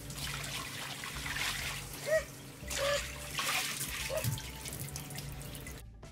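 Water running and trickling steadily, with a few short squeaks about two to four seconds in; it cuts off suddenly near the end.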